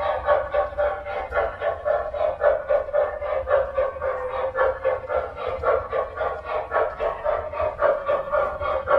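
Sound system of an MTH RailKing O-gauge Norfolk & Western Y6b 2-8-8-2 model steam locomotive running: rhythmic steam chuffing, about four chuffs a second, over a steady hum.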